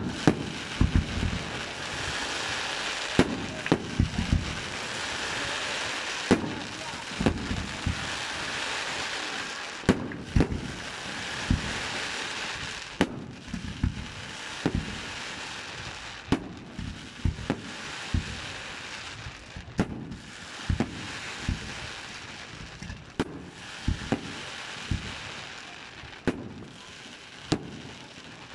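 Aerial fireworks display: shells bursting with sharp bangs at an irregular pace, several every few seconds, over a steady crackling hiss.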